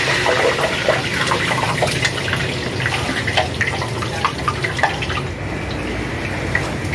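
Hot oil being ladled from a pot and poured over whole dry spices in clay handi pots. The oil pours and drips off the ladle while the spices sizzle, with scattered crackles, as the tempering (tadka) is fried red.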